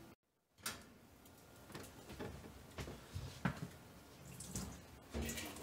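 Faint water dripping and light, scattered knocks and clicks, about one a second, from handling a bowl of wet yarn around the open tub of a top-loading washing machine.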